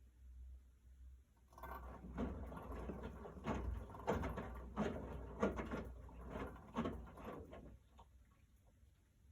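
Miele W1 washing machine during a wash, its drum turning with a run of uneven knocks and rattles for about six seconds before they stop. It is an unexplained noise that the owner wants identified.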